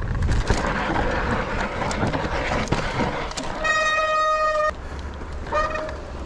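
Mountain bike descending a rough forest trail: tyres, suspension and frame rattling and knocking over roots and loose ground. Past the middle the rattle eases and a steady high buzzing tone sounds for about a second, then again briefly near the end.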